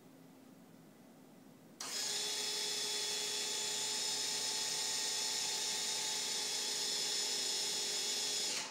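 Small electric motor driving the vertical rod of a homemade icing machine, running with a steady high whine. It starts suddenly about two seconds in and stops near the end.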